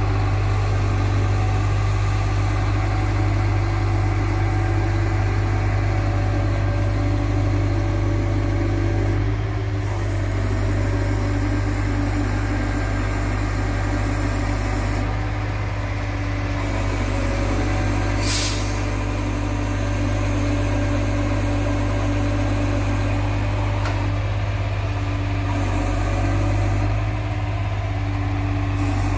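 Truck-mounted crane working: the truck's diesel engine runs steadily, and a hydraulic whine shifts in pitch several times as the boom lifts a slung steel H-beam. A single sharp clank about 18 seconds in.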